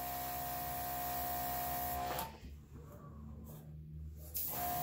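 Small airbrush compressor motor humming steadily. It drops out for about two seconds in the middle, then runs again.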